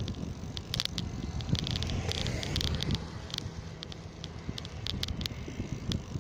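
Riding a bicycle on a paved road: a steady low wind rumble on the microphone, with scattered light clicks and rattles from the bike.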